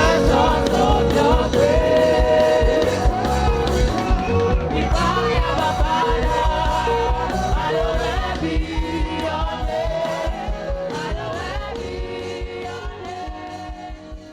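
Live gospel worship song: singing over a band with a steady beat, fading out toward the end.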